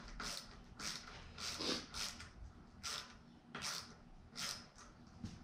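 Hand driver with a T25 Torx bit turning the disc-brake rotor bolts on a bicycle wheel hub, a short rasping click with each turn, roughly every half second.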